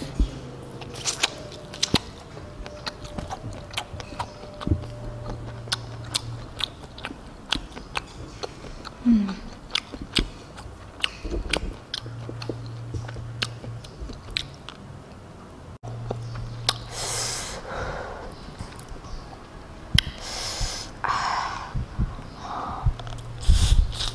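Close-miked chewing and biting of a mouthful of rice, omelette and instant noodles, with many small sharp clicks. A few short hissing sounds come in the last third.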